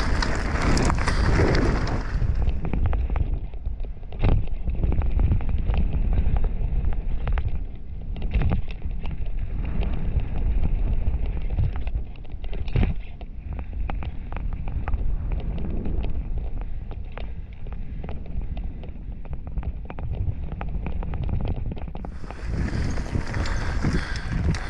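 Mountain bike descending a loose gravel trail: tyres rumbling over stones with frequent sharp knocks and rattles from the bike, and wind buffeting the microphone. The sound turns duller about two seconds in and brightens again near the end.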